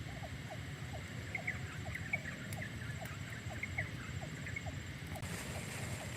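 An animal calling in a steady series of short rising chirps, about two a second, with fainter higher chirps scattered over a steady low rush.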